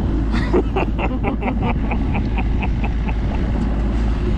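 Boat motor running with a steady low rumble, overlaid by a quick run of light clicks, about seven a second at first, that slow down and stop about three and a half seconds in.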